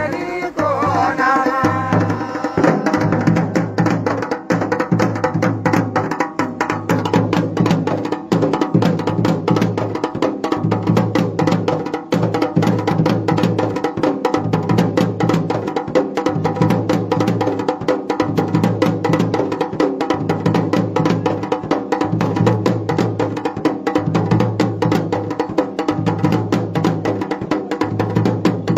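Dhol and damau, the Garhwali folk drum pair, played together in a fast, dense, even rhythm, with a deep drum tone pulsing underneath. A singing voice trails off in the first couple of seconds.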